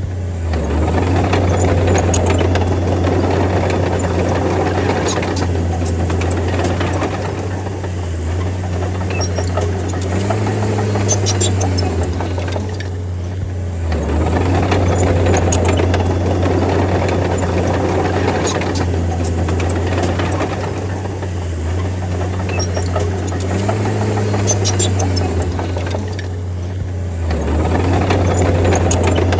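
D30 bulldozer's diesel engine running under load, its steady low drone shifting in pitch and level every few seconds as the blade pushes soil, with scattered light metallic clicks and rattles.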